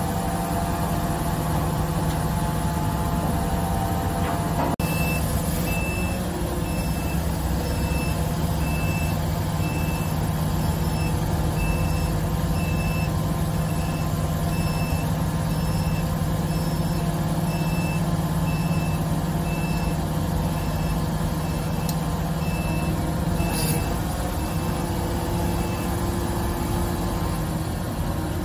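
XCMG QY25K5A truck crane's diesel engine running steadily, with a warning beeper sounding about once every 0.8 seconds from about five seconds in until a couple of seconds before the end. A sharp click comes just before the beeping starts, and a brief hiss a few seconds before the end.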